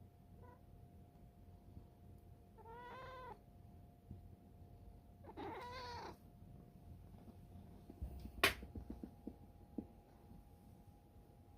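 Domestic cat giving two short meows, each under a second and about three seconds apart, with a faint chirp near the start. A sharp click is the loudest moment, later in the clip, followed by a few small ticks.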